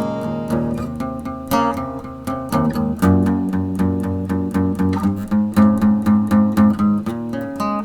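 Acoustic guitar playing a made-up tune: plucked and strummed notes in a quick, even rhythm.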